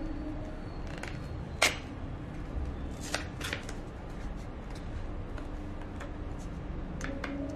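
Small sharp clicks and light plastic handling as a memory card is unpacked and readied for the camera. The loudest click is about a second and a half in, a few more come around three seconds and two near the end, over a steady low hum.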